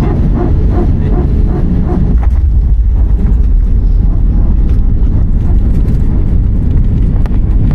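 Passenger aircraft cabin noise: a loud, steady low rumble of engines and airflow, shortly before touchdown.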